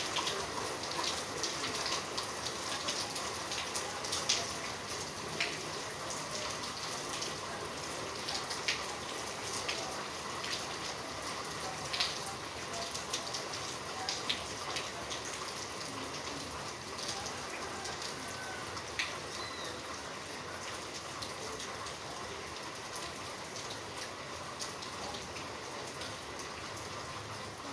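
Steady rain falling, with scattered sharp hits of individual drops, easing slightly toward the end.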